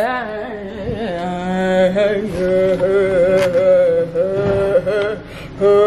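A woman singing in long, drawn-out held notes with no clear words, like a chant.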